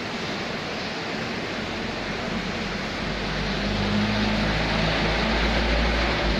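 A motor engine running amid a steady rushing noise, its low hum growing louder about halfway through.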